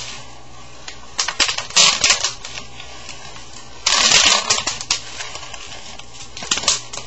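Bubble wrap popped by hand: clusters of sharp snapping pops, with a dense rapid run of pops about four seconds in as the sheet is twisted in both hands, and a few more near the end.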